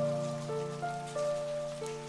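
Background music: single held notes stepping from one pitch to the next over a steady low drone.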